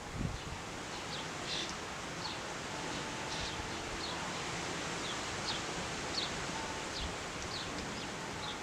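Steady wind rustling through leaves, with a small bird giving short, high chirps every half second or so.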